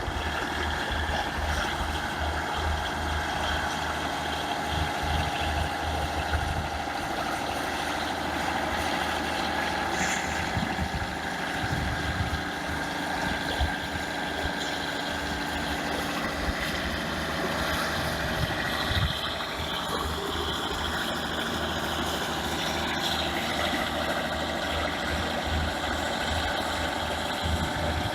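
Diesel engine of a BEML BD155 crawler bulldozer running steadily, with a low throb underneath.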